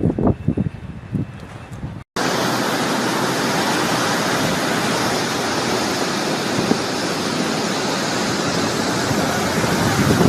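Hurricane wind and heavy rain making a steady, even roar after a cut about two seconds in. Before the cut, wind buffets the microphone in uneven low bursts.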